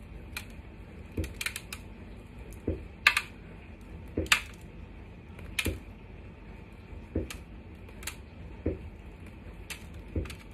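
Scissors snipping through the green coating at the edge of a cake popsicle, trimming it: short sharp clicks roughly a second apart, some in quick pairs.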